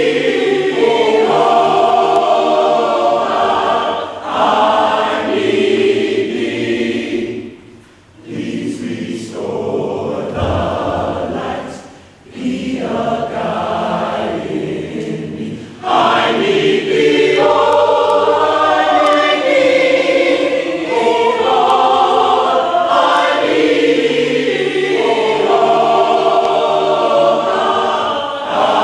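A choir singing in sustained chords, with two brief breaks about eight and twelve seconds in, then fuller, louder singing from about sixteen seconds on.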